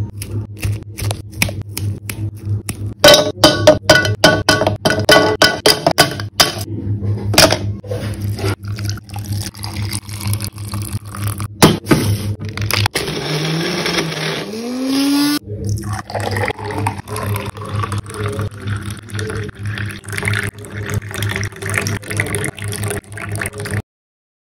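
Milkshake being made over background music: many sharp taps and clicks of ingredients and containers, loudest in the first few seconds, then a small personal blender whirring up in pitch for a couple of seconds around the middle, followed by a stretch of liquid noise as the shake is poured. The sound cuts off suddenly near the end.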